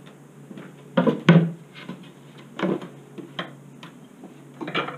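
Wooden beehive frames knocking and clattering as they are handled in a wooden hive box: about five separate knocks, the loudest about a second in.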